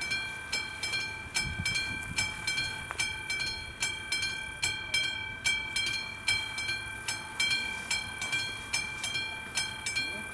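Railroad crossing warning bell ringing with rapid, even strikes, about two to three a second, each leaving a ringing tone: the crossing is activated for an approaching train.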